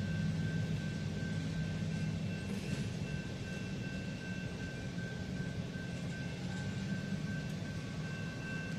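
Remote-control diesel locomotive running with a steady low drone, with a faint steady high-pitched whine above it.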